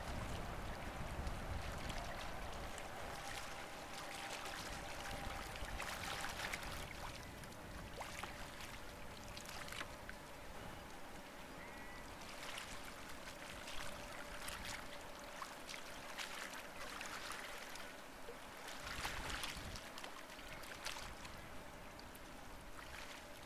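Small waves lapping and splashing irregularly against a stony rock shoreline, with a faint steady hum in the background.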